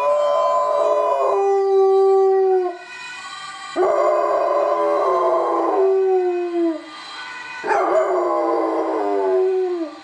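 Black Labrador mix howling: three long howls, each sliding down in pitch at its end. The dog is answering an ambulance siren.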